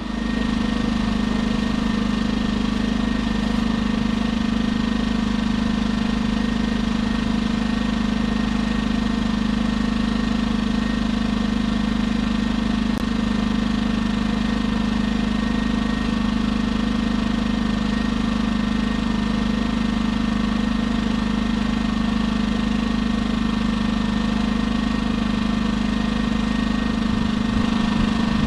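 A small engine running at a steady, unchanging speed, with a constant hum.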